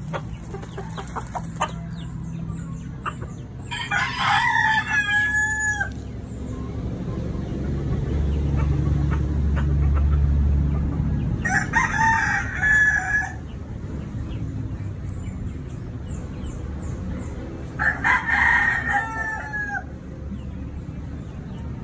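Rooster crowing three times, about seven seconds apart, each crow lasting roughly two seconds. A low rumble swells and fades in the middle.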